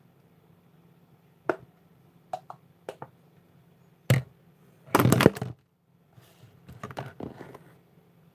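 Handling noise close to the phone's microphone: a few sharp taps and knocks, then a loud crackling rub about five seconds in, followed by softer rustling.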